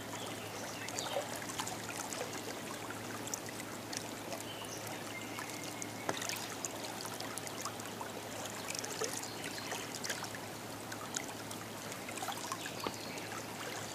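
Water lapping and trickling around a small boat on the river, with scattered light clicks and knocks.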